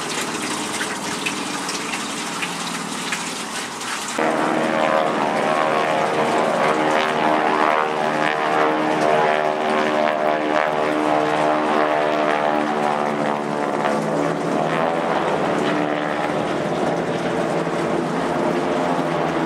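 North American Harvard trainers' Pratt & Whitney R-1340 Wasp radial engines and propellers droning overhead in formation. A dense buzz of many stacked tones comes in much louder about four seconds in, after a hissy start with wind on the microphone, and it shifts in pitch as the planes pass.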